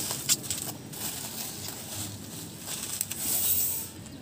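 Plastic bubble wrap rustling and crinkling as it is handled and pulled open, with a few sharp crackles near the start and a louder stretch of crinkling near the end.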